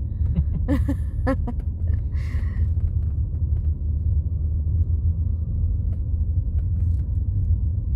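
Steady low rumble of a car's engine and tyres, heard inside the cabin of the moving car.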